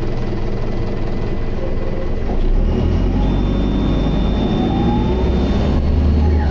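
Optare Solo bus running with its Allison automatic gearbox: the engine takes up load and grows louder about two seconds in, with a rising whine as it gathers speed. A steady high-pitched noise sounds over it from about halfway until shortly before the end.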